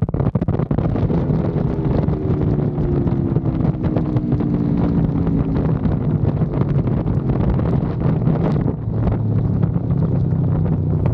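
Aprilia Tuono motorcycle engine running at highway speed under heavy wind buffeting on the microphone. There is a brief dip just after the start, then the engine note eases slowly lower over the next few seconds.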